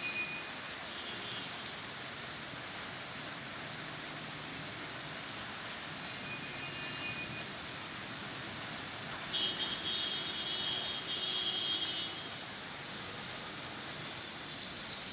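Steady rain, an even hiss, with a few seconds of thin high tones rising over it about two-thirds of the way through.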